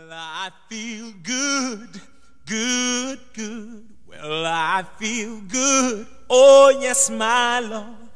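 Gospel song with voices singing drawn-out phrases with a wavering vibrato, each about a second long with short breaths between.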